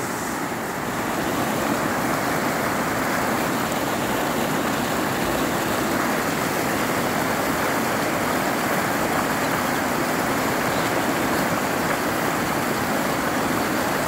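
Flowing water rushing steadily, an even hiss with no breaks.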